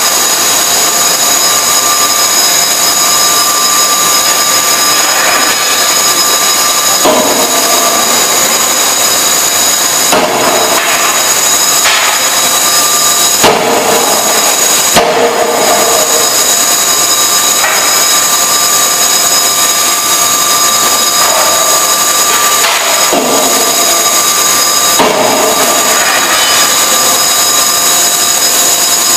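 Die forging hammer running, with a loud steady machine noise carrying several high steady tones. Two sharp blows come about halfway through, as the hammer strikes the hot workpiece in the die.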